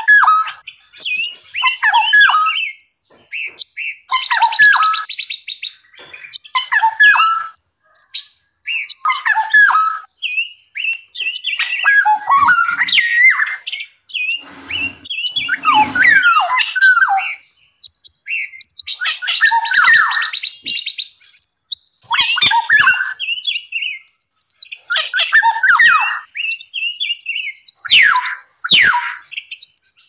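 Several caged songbirds singing and calling: a near-continuous run of varied whistled phrases, chirps and quick trills, with short pauses between phrases.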